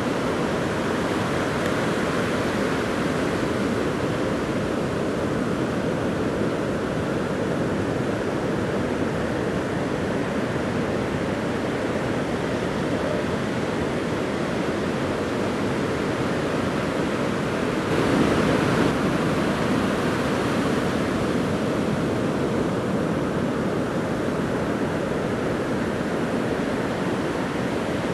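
Continuous rush of heavy storm surf breaking on the beach, with a louder surge about two-thirds of the way through.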